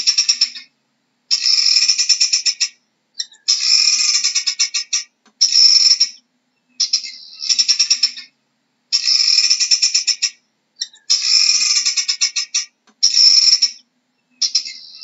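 Guinea fowl calling: a rapid, pulsing cackle in bursts of about a second each, some ten of them, separated by short pauses.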